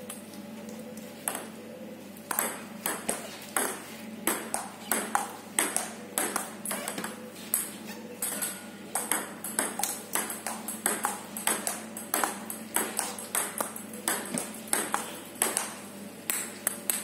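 Table tennis rally: a ball clicking off the table and the rubber paddles in a quick, even rhythm of two to three sharp ticks a second, starting about two seconds in.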